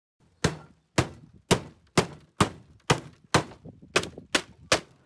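Claw hammer striking wooden boards, a steady run of about eleven blows at roughly two a second.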